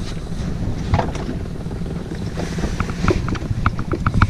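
Yamaha outboard motor running steadily at low speed, with wind buffeting the microphone. A string of short clicks and knocks comes over it, most of them in the second half.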